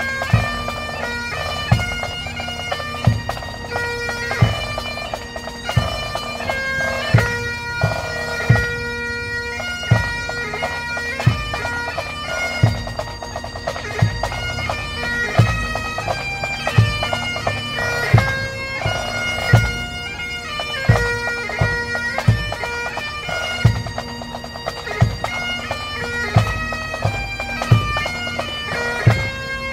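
Bagpipes playing a slow melody over steady drones, with a bass drum beating about once every second and a half.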